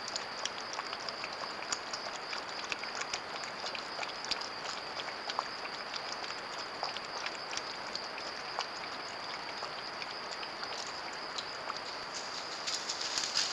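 Steady high-pitched insect chorus, typical of crickets, with scattered soft clicks and ticks throughout that come thicker near the end.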